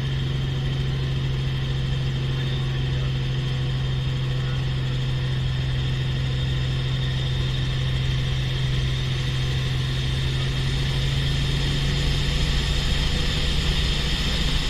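Helicopter's engine and rotor running steadily in flight, heard from inside the cabin as a constant low hum with a steady hiss over it.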